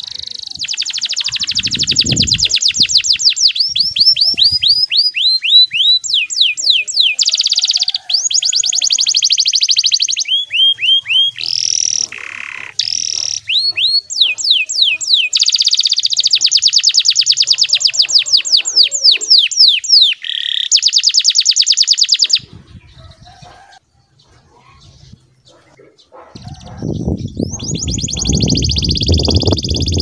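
Canary singing a long song of rapid rolls and trills, fast runs of high repeated notes that change speed and pitch from phrase to phrase. The song breaks off about 22 seconds in and starts again near the end over a low rushing noise.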